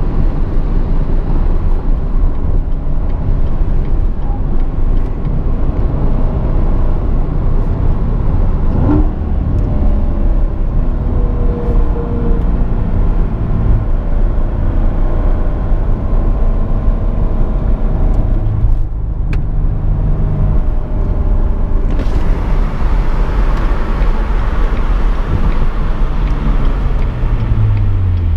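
Chevrolet Corvette C7 Stingray's 6.2-litre V8 heard from inside the cabin, mixed with heavy wind and tyre noise at high motorway speed. The car then slows, with the engine note falling from about nine seconds in and again near the end.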